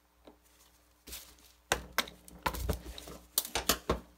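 A screwdriver bending back the steel locking tabs on the lower ball joint bolts of a Jaguar independent front suspension: irregular sharp clicks and taps, starting about a second in and coming thicker in the second half.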